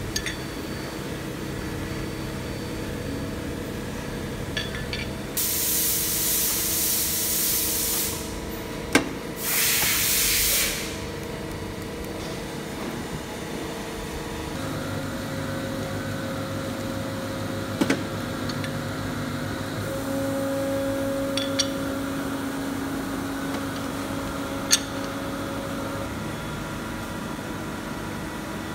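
Hydraulic silicone embossing press humming steadily, its tone shifting about halfway through. Two bursts of loud hiss come about five and nine seconds in, with a few sharp clicks scattered through.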